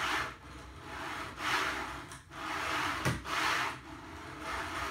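3D printer Z bed being pushed up and down on its steel Z rods, the newly fitted LM12 linear bearings sliding along the rods with a noisy swish on each stroke, about one stroke a second. The bearings are being worked back and forth to settle in.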